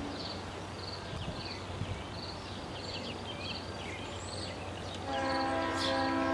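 A bell dings steadily, about twice a second, with a few bird chirps over it. About five seconds in, the approaching CN freight's lead locomotive, a GE C40-8W, sounds its multi-chime air horn in a long chord, the loudest sound.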